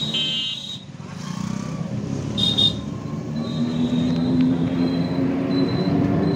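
Motorised auto-rickshaw running along a road, heard from inside the passenger cab, its engine picking up a little about three and a half seconds in. A short, high horn beep sounds about two and a half seconds in.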